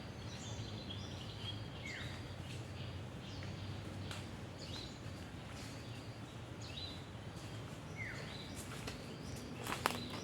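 Tropical forest ambience with a bird giving short calls that fall in pitch, repeated every second or two over a steady background hiss. A few sharp clicks come near the end.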